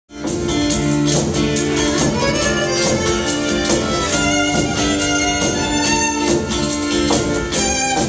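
Live contemporary Native American instrumental band music: a fiddle playing a melody over electric guitar and a steady drum beat.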